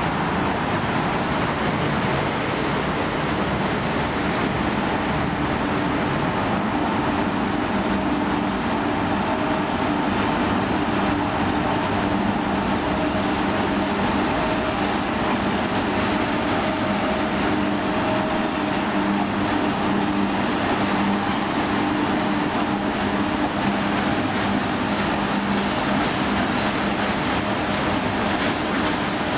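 2TE116 twin-section diesel locomotive passing at the head of a freight train, its diesel engines giving a steady drone with a few held hum tones over the noise of the wheels on the rails.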